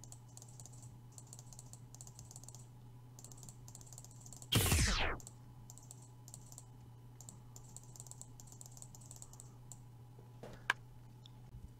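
Runs of light, rapid mouse and keyboard clicks as the clone stamp is worked, over a steady low hum. About halfway through, a loud whoosh sound effect sweeps down from high to low, and a single sharp pop comes near the end.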